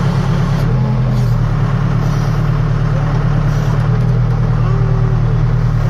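Case 580 Super K backhoe's four-cylinder diesel engine running steadily while the backhoe is being worked.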